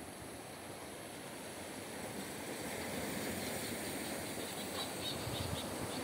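Steady rushing of wind and sea on a rocky shore, growing louder about two seconds in, with faint high bird chirps in the second half.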